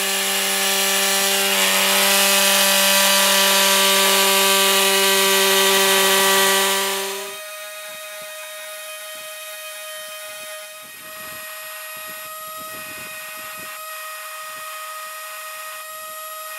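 Jigsaw cutting a sheet of FR4 fibreglass-epoxy board: a steady motor hum with the hiss of the blade. About seven seconds in it gives way to a quieter, higher steady whine from a Makita cordless orbital sander clamped as a fixed sander, with FR4 pieces being sanded on its disc.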